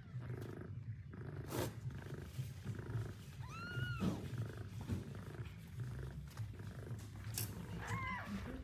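Mother cat purring steadily, with two short, high-pitched rising-and-falling mews from her newborn kittens, one about halfway through and one near the end.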